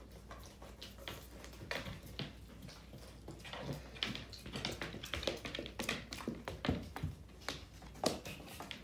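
A pet pig's hooves clicking and tapping irregularly on a wooden floor as it walks about.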